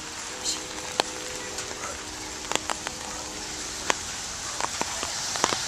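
Steady rain falling on wet pavement, heard as a constant hiss, with a scattering of sharp ticks through it.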